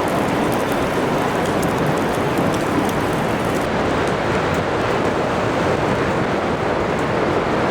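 Steady rain pouring down in a thunderstorm, a dense even hiss, with faint ticks of drops through the first half.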